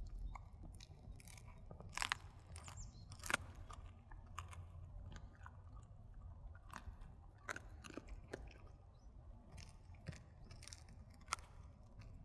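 A dog chewing and crunching dried duck bones, with irregular sharp cracks scattered over a low steady rumble, the loudest of them about two and three seconds in.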